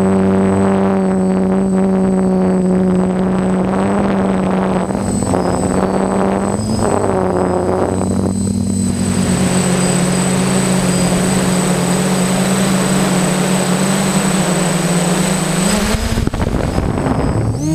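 DJI F550 hexacopter's motors and propellers whining steadily, heard from the frame-mounted camera, the pitch shifting a few times and rising near the end. From about halfway a rushing wind noise builds over the motors during fast flight.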